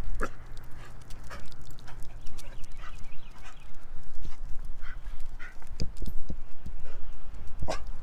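Footsteps of a walker and two Korean Jindo dogs on an asphalt path: irregular taps and scuffs, over a low rumble of camera handling. A sharper knock comes near the end.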